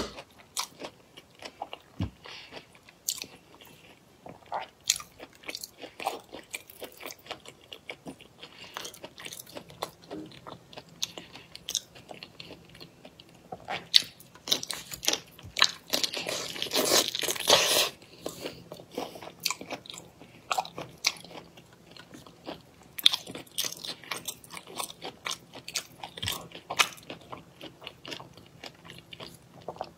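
Close-miked mouth sounds of a person eating fish in a thick spicy sauce: repeated bites, wet chewing and smacking. Just past halfway there is one louder, continuous stretch of noise lasting about two seconds.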